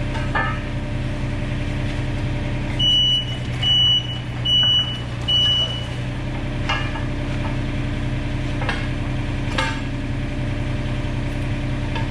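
Komatsu PC27 mini excavator's diesel engine running steadily. About three seconds in come four short, high electronic beeps in a row, and a few sharp knocks follow later.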